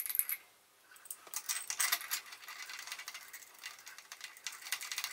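Small steel machine parts clinking and scraping against each other as they are handled and fitted together on an arbor, in a fast, irregular run of light metallic clicks from about a second in.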